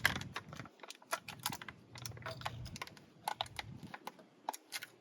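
Plastic toy packaging being handled and opened by hand: a run of irregular crinkles and sharp clicks.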